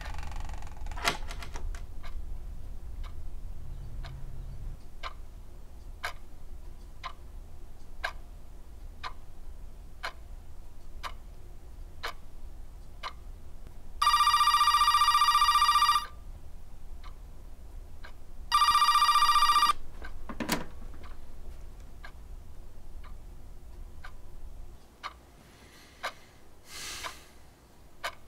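Cordless landline telephone ringing twice with an electronic trill, a long ring of about two seconds and then a shorter one, over a clock ticking about once a second. A low hum underneath drops away near the end.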